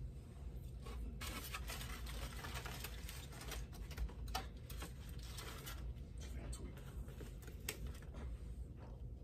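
Irregular crinkling and rustling of food wrappers with light clicks as takeout food and containers are handled.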